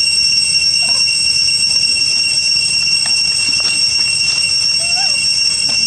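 A loud, steady, high-pitched whine holds several tones throughout. A macaque gives a short call about five seconds in.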